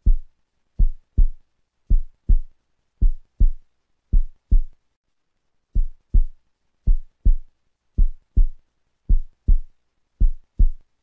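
Heartbeat sound effect: a slow, steady lub-dub of deep double thumps, a little under one pair a second, with one beat left out about five seconds in.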